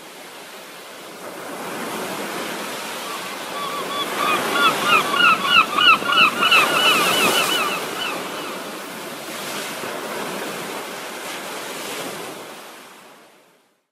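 Surf washing on a shore, fading in at the start and out near the end. From about three seconds in, a bird gives a rapid series of short calls, about three a second, for around five seconds.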